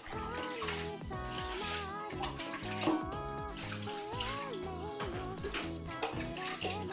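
Background music with a gliding melody over a steady repeating bass line, with the hiss of running water underneath.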